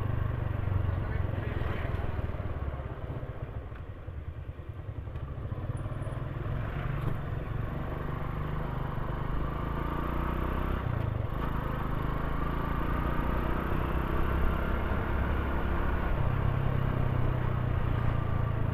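Motorcycle running while being ridden, its engine drone steady. It drops off a little about four seconds in, then comes back and holds steady.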